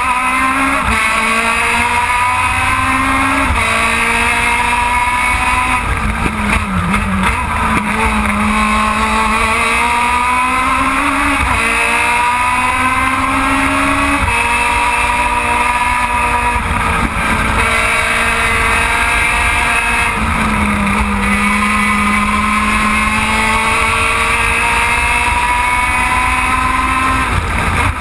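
Onboard sound of an Aussie Racing Car's high-revving Yamaha 1.3-litre four-cylinder engine under race load. The revs climb and drop sharply at each upshift, then fall away in stepped downshifts under braking into corners, several times over.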